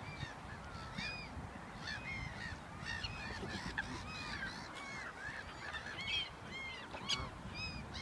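A mixed flock of geese and other waterbirds calling constantly: many short, overlapping honking calls that rise and fall in pitch.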